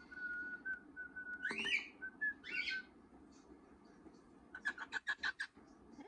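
A person whistles a steady note for a second and a half. A cockatiel chick answers with a rising call, then another call about a second later, and a quick run of about seven chirps near the end.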